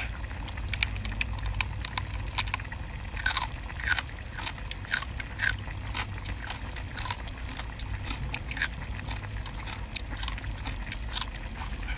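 A person biting into and chewing a large translucent piece of cooked seafood: crisp, crunchy crackles, several a second and irregular, over a low steady hum.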